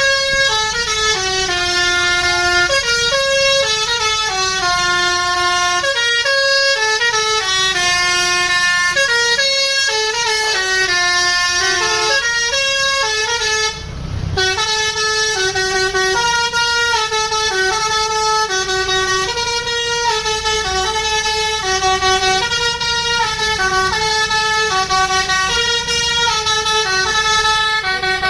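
Indonesian bus 'telolet' basuri multi-tone air horn playing a melody: several horn notes sound together and step up and down in pitch, with a short break about halfway through.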